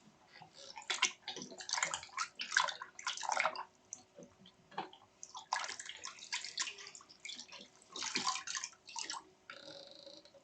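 Dog licking, wet smacking and slurping in irregular bursts with short pauses between them.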